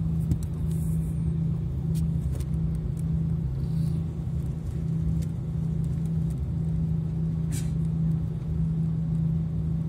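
Airbus A340 engines heard from inside the cabin over the wing: a steady drone with a strong low hum at an even pitch, not spooling up, as the airliner moves slowly on the ground.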